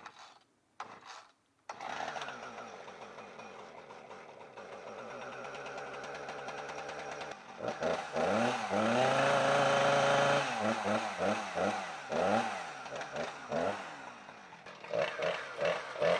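Two-stroke chainsaw started and running at idle, then revved up to a steady full throttle about eight seconds in, followed by a series of quick throttle blips.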